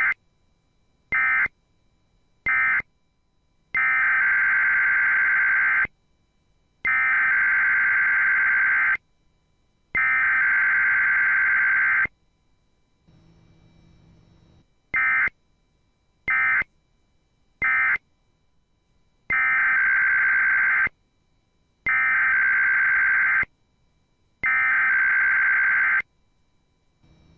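Emergency Alert System SAME digital data bursts, a harsh buzzing warble of rapidly switching tones. Three short bursts, the end-of-message code closing the finished alert, are followed by three bursts of about two seconds each, the header of the next alert. The same pattern of three short and three long bursts then comes again.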